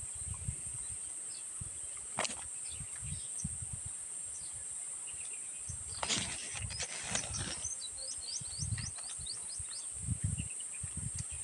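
Steady high-pitched drone of crickets, over soft eating sounds: low chewing thumps and a crackly rustle about six seconds in. A quick run of small chirps comes near the end.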